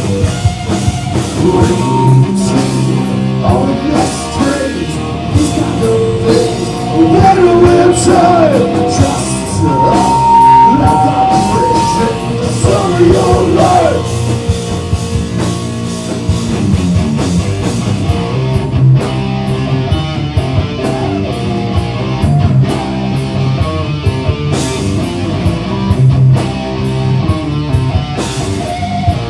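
Rock band playing live: drum kit and electric guitars, loud and continuous, with a bending melody line over roughly the first half that gives way to steady held chords and regular drum hits.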